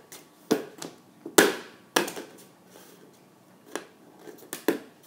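Flat plastic soccer ball being kicked and juggled, bouncing on a hard floor: a run of sharp, irregular slaps and knocks, the loudest about a second and a half in.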